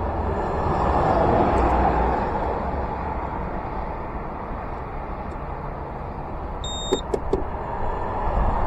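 Road traffic passing through an intersection: cars driving by, with one pass swelling about a second in, over a low steady rumble. A couple of brief high beeps sound about seven seconds in.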